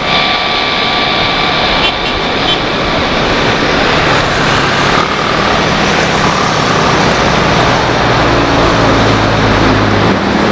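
Jet engines of an Airbus A330-243F freighter, Rolls-Royce Trent 700 turbofans, running as the aircraft rolls along the ground: a steady rush with a thin high whine over it, the low rumble growing stronger near the end.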